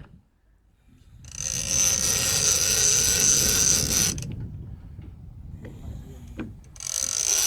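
Fishing reel being wound in fast to take up slack line while a hooked shark swims up towards the boat, its gears whirring and clicking. The winding comes in two spells, starting about a second in and again near the end.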